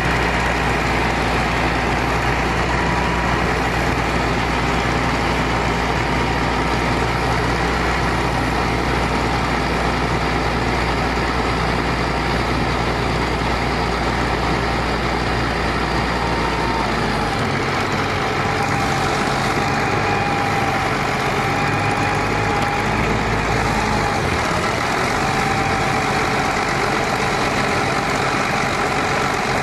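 A 1996 International 4700 truck's DT466E 7.6-litre inline-six turbo diesel idling steadily. The deep low hum changes about two-thirds of the way through and shifts again a few seconds later.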